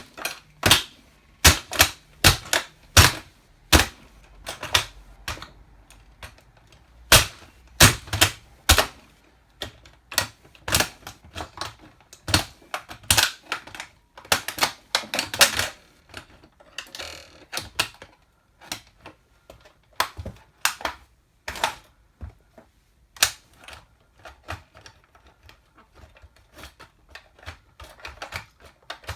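8-inch platform high heels crushing a plastic toy car: a run of sharp, irregular cracks and clicks, several a second, with a denser crackling stretch about halfway through.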